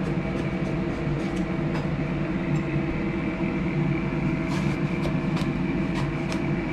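Steady machine hum with a faint high whine, and a few soft clicks of a knife slicing an eggplant lengthwise against a plastic cutting board, mostly in the second half.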